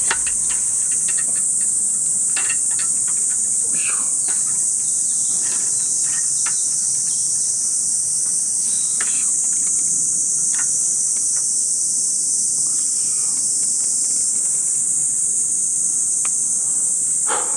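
A steady, high-pitched insect chorus, with scattered light clicks and knocks from a metal hanger pole being fitted beside a small camp table.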